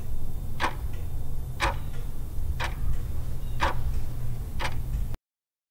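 Countdown-timer clock-tick sound effect: five sharp ticks, one a second, over a steady low drone. It cuts off suddenly near the end.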